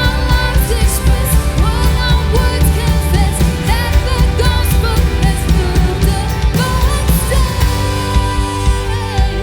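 Worship band music with a sung vocal over drums, bass and guitar; near the end the singing drops out and the instruments carry on.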